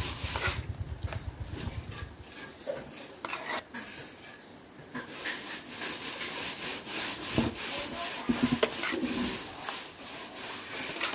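Irregular rough rubbing and scraping strokes, as of a hand tool worked against wood or another hard surface, with a few sharp knocks.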